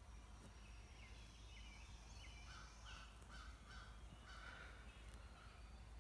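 Faint dawn birdsong in woodland: a distant bird gives a series of short, evenly spaced calls about halfway through, over thin, high songbird chirps.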